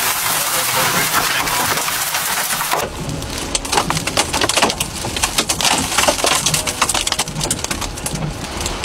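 Hurricane wind and driving rain: a dense, loud roar for about the first three seconds, then rough gusting with a rapid run of sharp crackles and knocks over it.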